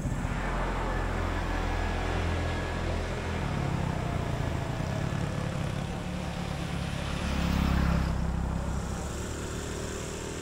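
Road traffic passing on a highway, a steady rushing and rumbling of tyres and engines, with one vehicle going by loudest about eight seconds in.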